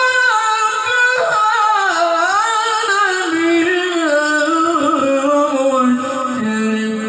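Male qari's melodic Qur'an recitation (tilawah): one long ornamented phrase, held high at first and then winding downward in pitch to a low held note near the end.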